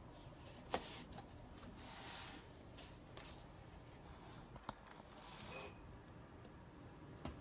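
Paper pages of a handmade accordion-fold book being handled and moved, with faint rustling and three sharp taps: one under a second in, one about two-thirds through, one near the end.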